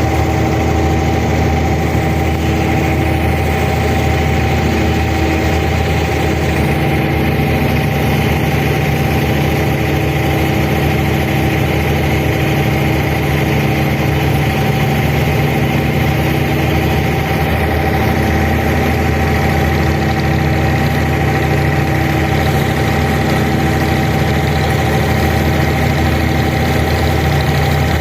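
Abra water-taxi's diesel engine running steadily at a constant speed, a steady drone with a low hum and a few held tones above it.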